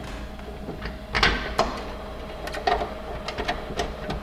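A spool of 3D-printer filament and its loose end being handled: a few light clicks and scrapes, the loudest about a second in, over a faint steady hum.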